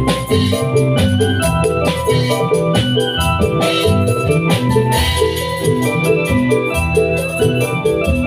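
Loud obrog music through a sound system: an electronic keyboard plays a melody over a quick repeating bass figure, with strong beats about once a second.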